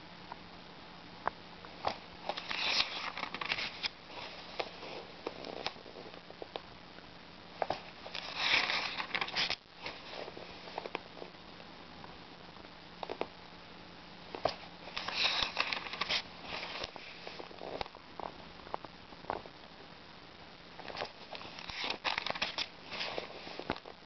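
Pages of an old paper book being turned by hand: a papery rustle about every six seconds, with small clicks and taps in between, over a faint steady hum.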